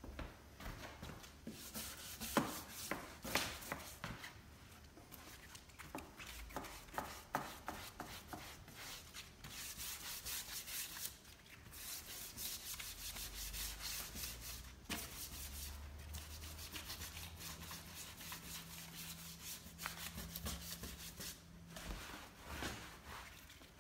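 Cloth rag rubbing and wiping over the bare, weathered timber of a wooden bench backrest, a soft scraping hiss that comes in spells. There are a few light taps in the first few seconds.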